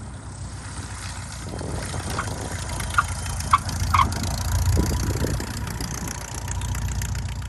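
Light propeller airplane engine droning as it passes by, swelling to its loudest about halfway through and then easing off. A few short high blips sound a couple of seconds in.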